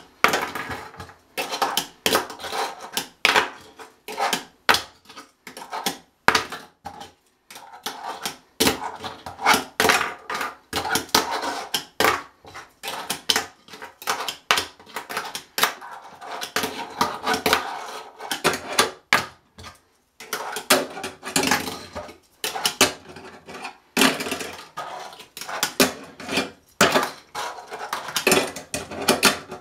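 Tech Deck fingerboard clacking on a hard countertop: many sharp irregular clicks and knocks as the tail pops and the board lands, with the light rattle of its tiny wheels rolling between them.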